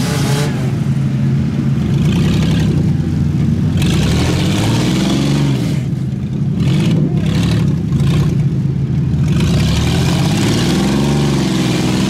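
Pickup truck engines running hard in mud, revving up and easing back down twice, as one pickup pulls another stuck pickup out of a mud hole.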